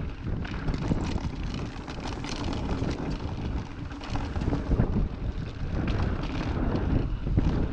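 Mountain bike riding down a rocky dirt trail: wind buffeting the handlebar-mounted microphone over the rumble of tyres on dirt and stones, with frequent clatter and rattles from the bike over rough ground.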